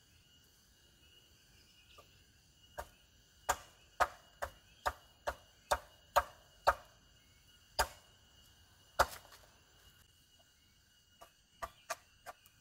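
Machete blade chopping into a small piece of wood, splitting it into kindling: a series of sharp wooden knocks about two a second, a pause, then four lighter, quicker strikes near the end. A faint steady insect drone runs underneath.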